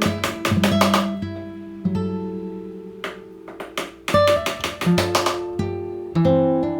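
Background music on acoustic guitar: strummed chords and plucked notes that ring and fade, with a brief lull near the middle.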